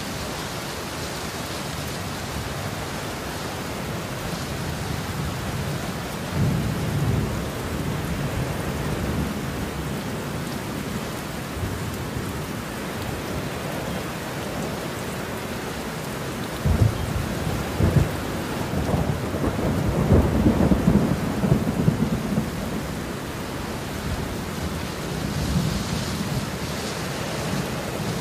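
Heavy rain falling steadily, with thunder rolling over it: a short rumble about a quarter of the way in, a longer and louder stretch of cracks and rumbles from just past halfway, and a softer rumble near the end.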